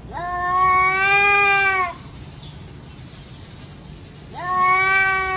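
Domestic cat giving two long, drawn-out yowls, each about two seconds long. Each rises at the start and sags slightly at the end. This is the warning yowl of a cat facing off with another cat.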